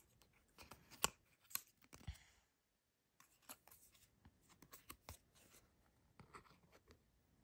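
Faint handling noise: a paper hang tag on its string and a resin watch strap being turned in the fingers, giving small scattered clicks and short rustles.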